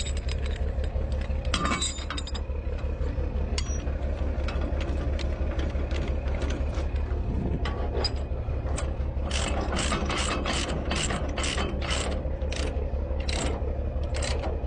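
Heavy diesel machinery running with a steady, fast-pulsing low rumble and metallic clicking. The clicks are scattered at first and become a regular run of sharp clicks, about two or three a second, from about nine seconds in.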